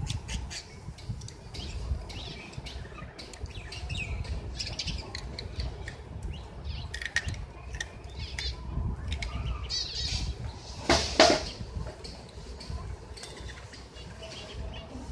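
Ducklings peeping in short high calls, with scattered light clicks and one louder call about two-thirds of the way through.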